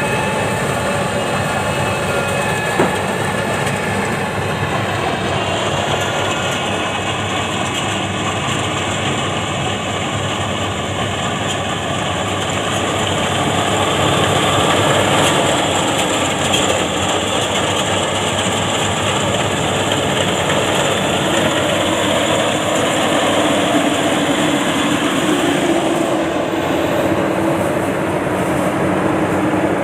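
Rice combine harvester running steadily as it harvests, its engine and threshing machinery making a continuous loud mechanical noise that swells slightly midway.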